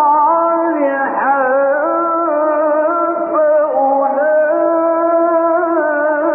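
A male Quran reciter chanting in the melodic mujawwad style, holding long vowels with ornamented pitch turns and a few short breaks between phrases.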